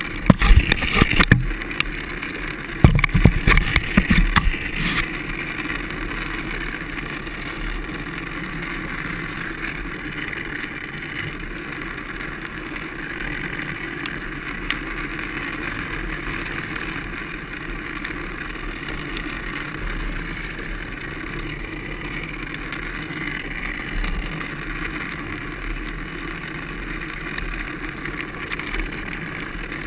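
Drift trike rolling downhill on wet asphalt, a steady rumble of wheels and vibration picked up through a GoPro Hero2 housing. Loud knocks and rattles cut in near the start and again a few seconds in.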